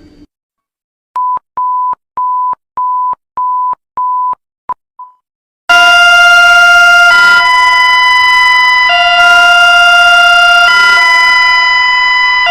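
Emergency alert alarm: six short, evenly spaced high beeps, then after a moment's pause a loud, harsh chord of steady tones that switches back and forth between two chords about every two seconds.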